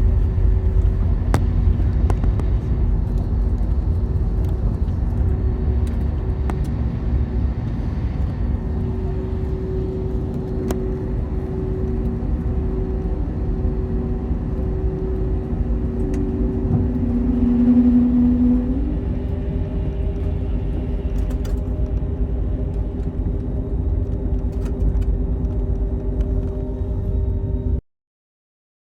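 Steady low rumble of airliner jet engines, with a few steady humming tones over it and a brief rising tone about two thirds of the way through; it cuts off suddenly near the end.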